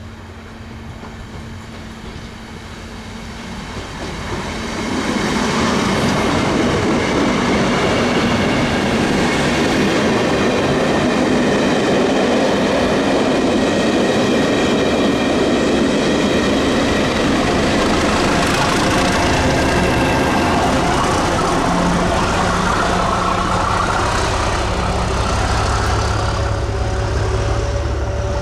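Test train passing at speed. The rolling and clattering of wheels on rail builds up over the first five seconds, then holds loud and steady. Near the end, the low note of the Class 37 locomotive's English Electric V12 diesel comes through strongly as it thrashes at full power.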